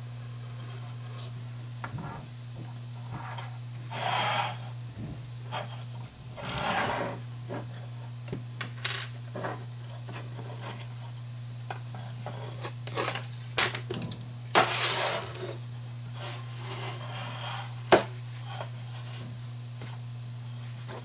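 Aluminium curtain track and small plastic fittings being slid and handled on a wooden tabletop: intermittent rubbing scrapes and sharp clicks, the loudest click near the end, over a steady low hum.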